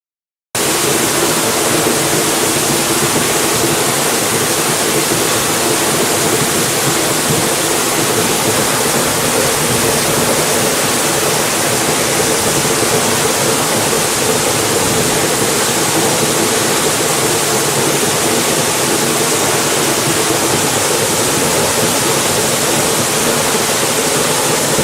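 A 60-foot waterfall: a loud, steady rush of falling water that cuts in abruptly about half a second in and holds unchanged.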